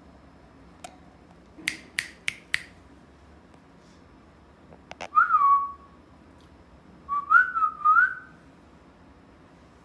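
Alexandrine parakeet whistling: a short falling whistle about five seconds in, then a wavering whistled phrase near the end. Before the whistles comes a quick run of four sharp clicks.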